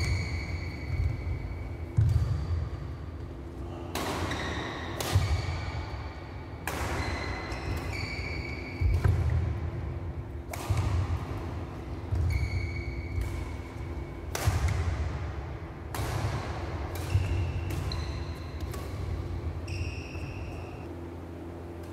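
Badminton rally: sharp racket strikes on the shuttlecock every one to two seconds, each with a brief ringing tone, over thudding footfalls and a steady low hum. The strikes stop near the end.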